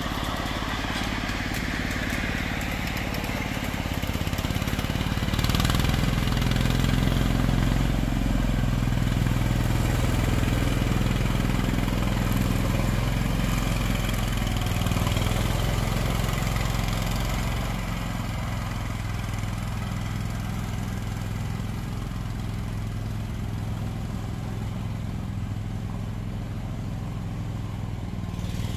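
Small engine of a 7.5-inch gauge ride-on diesel-style locomotive running steadily as it passes along the track. It grows louder over a few seconds, holds for about ten seconds, then fades as the train moves away.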